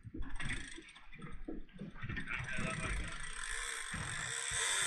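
Mechanical clicking and whirring of a big-game trolling reel as the rod is worked. From about halfway it is joined by a steadily rising hiss of water rushing past the boat.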